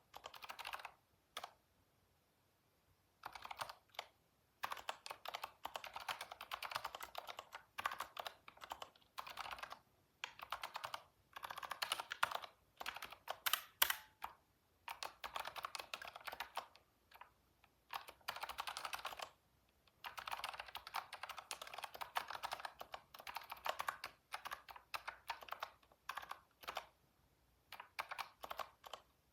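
Typing on a computer keyboard: rapid runs of key clicks lasting a few seconds each, broken by short pauses.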